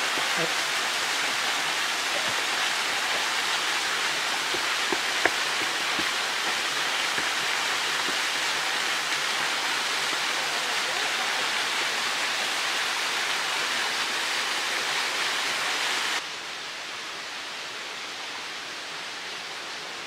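Small waterfall splashing down a rock ledge into a shallow pool: a steady rushing hiss. It drops abruptly to a fainter hiss about sixteen seconds in.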